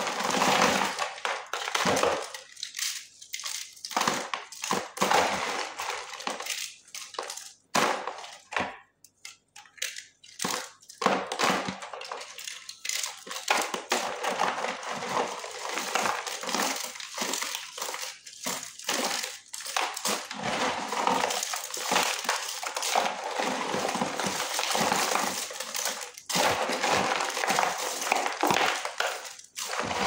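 Hands crushing and crumbling brittle dry chunks of khadi mitti (white chalk clay) in a plastic basin: a dense run of dry crunching and crackling, with pieces dropping back onto the pile, broken by a short pause about eight seconds in.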